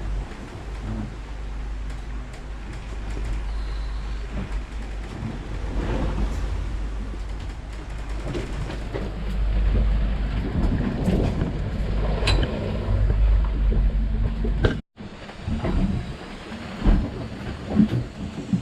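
Wind rumbling on the microphone and the noise of a sailing yacht underway in rough sea, with scattered knocks and rattles. The rumble cuts off abruptly about fifteen seconds in, and irregular knocks continue after it.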